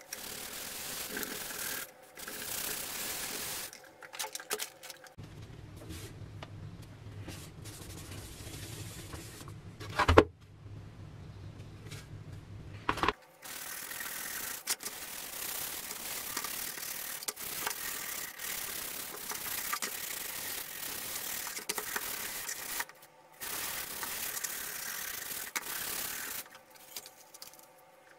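Green scouring pad scrubbing baking-soda paste over a rusted metal helmet: a steady, rough rubbing. It stops for several seconds in the middle, where a low hum and one sharp knock are heard, then the scrubbing resumes and dies away near the end.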